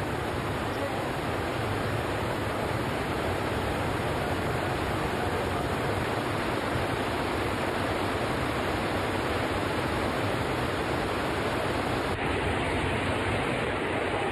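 Rainwater pouring through the roof into a flooded subway station, a steady rushing hiss with no let-up; the sound shifts slightly about twelve seconds in.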